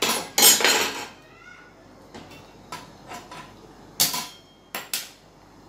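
Steel utensils clattering on a gas stovetop as a small tempering ladle is handled, then a few sharp clicks of a hand-held spark gas lighter lighting the burner to heat the tempering.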